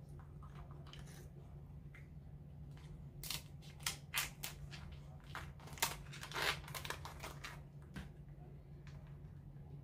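Kitchen shears snipping through a boiled lobster tail's shell, with a run of sharp crunching cracks and snaps in the middle seconds, over a steady low hum.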